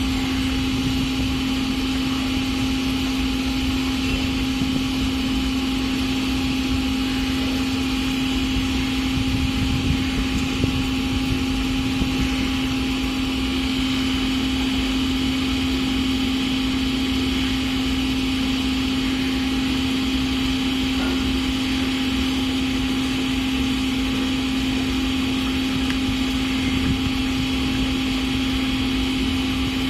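Steady mechanical hum of a running motor, holding one constant pitch with no change in level.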